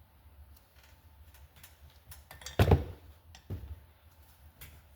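Light metallic clicks of valve-train parts being handled during cylinder head disassembly, with one louder knock about two and a half seconds in and a smaller one about a second later.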